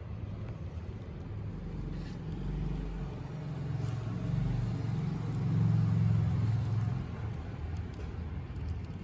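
Low rumble of road traffic, a vehicle engine swelling louder in the middle and then fading again.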